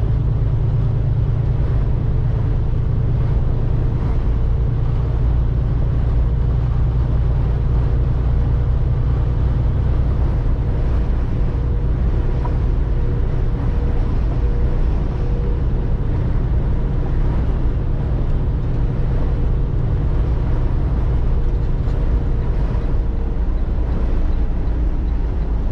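Semi truck cruising at highway speed in a strong crosswind, heard from inside the cab: a loud, steady low drone of engine and road noise, with a faint steady whine above it.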